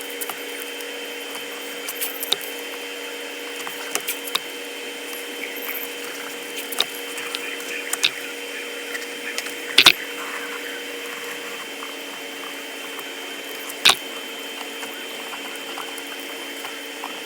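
Masking tape being handled and stuck over decals: scattered sharp clicks and short crackles, two louder snaps about ten and fourteen seconds in, over a steady machine hum.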